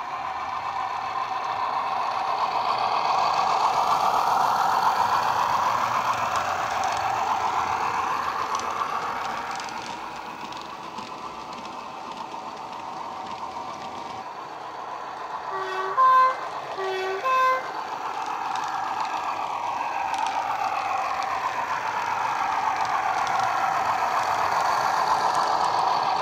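Simulated Class 31 diesel engine sound from a Soundtraxx Econami sound decoder, played through the small speaker of a model locomotive as it runs past. The engine drone swells and fades as the train passes and comes round again, and the horn gives two short toots about sixteen and seventeen seconds in.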